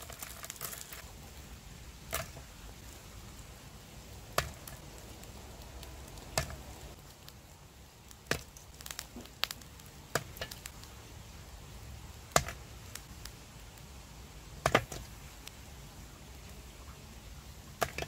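Chestnuts roasting on a charcoal grill, giving about ten sharp cracks at irregular intervals, roughly one every one to two seconds, as the hot shells split.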